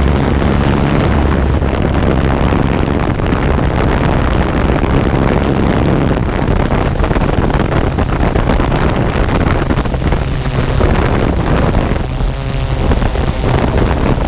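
Drone's motors and propellers running steadily in flight, a continuous buzzing hum, with wind buffeting the microphone.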